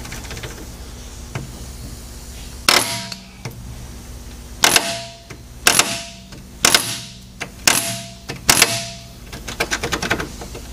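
Six sharp metal-on-metal strikes about a second apart, each ringing briefly, as a rusted bolt on a heavy truck's radiator mounting is worked loose, followed near the end by fast ratchet clicking.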